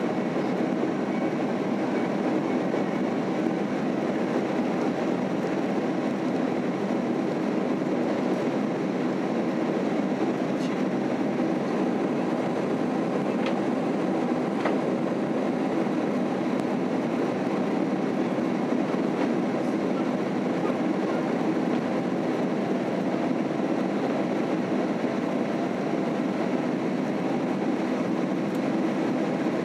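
Steady cabin noise inside a Boeing 767-300 climbing after takeoff: the even, unchanging rush of its engines and the airflow over the fuselage.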